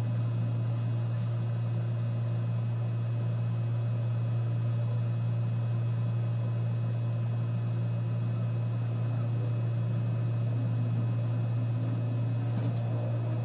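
Steady low hum of room background noise with no change in level, and a brief faint tick near the end.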